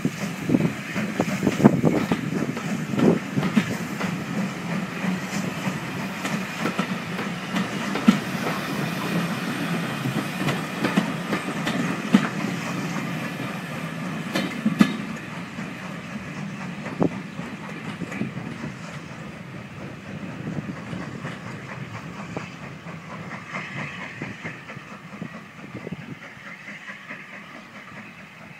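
Steam-hauled passenger train of vintage carriages running past and drawing away, its wheels clattering over the rail joints. The sound fades steadily as the train recedes.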